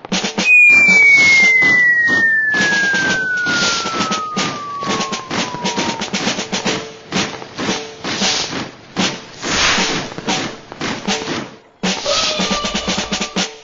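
Drum kit playing, with rapid snare strokes like a drum roll and bass-drum hits. A whistle tone slides steadily down in pitch over the first six seconds, and the drumming stops briefly just before the end.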